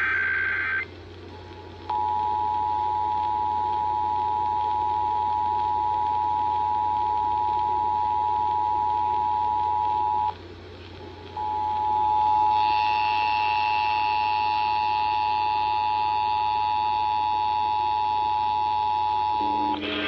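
Emergency Alert System test tones played through a portable radio's speaker. The end of the buzzy, warbling SAME data header is followed about 2 s in by the two-tone attention signal, two steady tones sounding together. The attention signal breaks off about 10 s in and resumes a second later with higher tones layered over it from about 12 s, and another short data burst sounds near the end.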